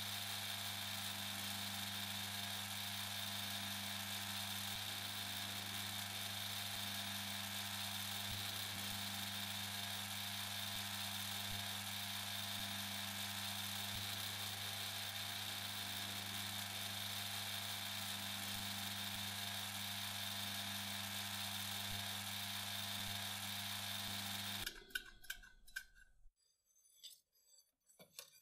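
Metal lathe running with a steady hum, turning a stainless steel shaft while abrasive paper and then a polishing cloth are held against it. The lathe stops about 25 seconds in, followed by a few light clicks.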